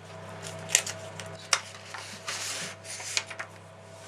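Rubbing and rustling handling noises with a few sharp clicks, over a steady low electrical hum.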